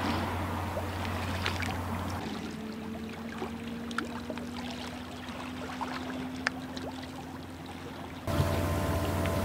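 A steady low engine-like hum over an even outdoor haze with scattered small clicks. About two seconds in it drops quieter and a faint tone drifts slowly upward. Near the end it switches abruptly to a louder steady hum.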